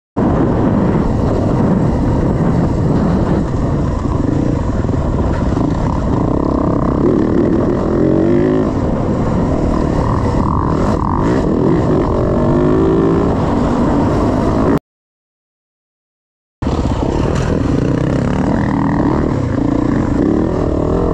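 Dirt bike engine running and revving up and down while riding a trail, with wind rush on the microphone. The sound drops out completely for nearly two seconds about fifteen seconds in.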